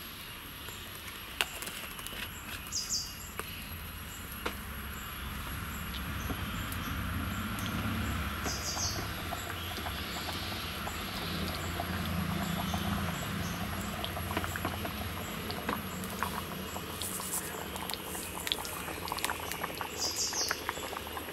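Ghee heating in a small tempering pan on a gas burner: a steady hiss over a low flame rumble, growing louder from about six seconds in as the ghee gets hot, with a few light ticks. Birds chirp briefly a few times.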